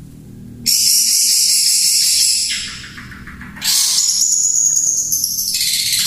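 Caged long-tailed shrikes (cendet) singing loudly in high, shrill bursts. One burst comes about half a second in, followed by a lower, fast rattling trill near the middle, and another high burst with a held whistle-like note from just past halfway.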